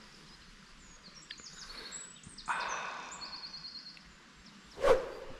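Small birds chirping, with a short trill of quick repeated high notes. About halfway through comes a rustling sound lasting about a second, and near the end a single sharp knock.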